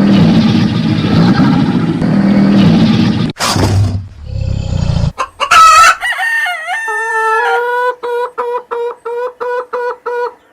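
Chickens: a rooster crowing once, then a steady run of short clucking calls, about two to three a second, stopping near the end. Before that, a loud, rough, low rumbling noise fills the first three seconds or so.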